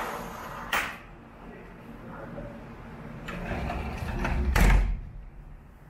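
A sliding glass door being pulled shut. There is a click about a second in, then the door rolls along its track and closes against the frame with a thud near the end.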